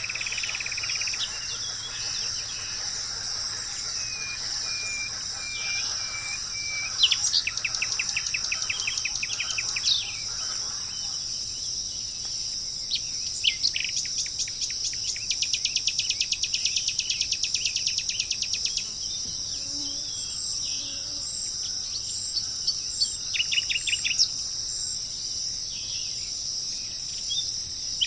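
Songbirds singing over a steady high-pitched insect drone: a run of short, even whistled notes, then several rapid trills, the longest lasting about five seconds in the middle.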